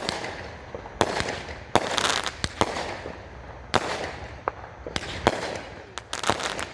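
A 25-shot 200-gram fireworks cake firing: a sharp bang about every second, some in quick pairs, each trailing off in a hissing rush as the chrysanthemum shells go up and break.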